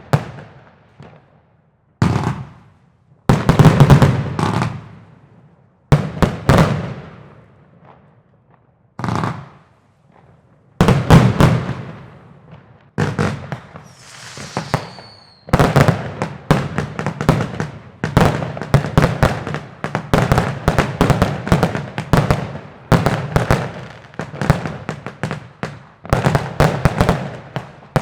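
New Year's Eve fireworks. For the first half, loud bangs and crackling come in separate clusters with short gaps between them. From about halfway through they merge into a near-continuous rapid barrage of bangs and crackles, with a brief high whistle just before.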